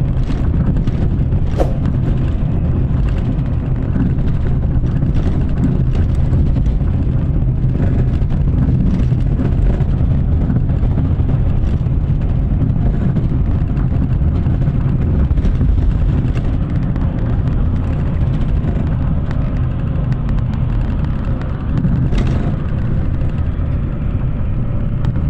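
Steady low rumble of a vehicle travelling at speed on a highway: road and wind noise with engine hum.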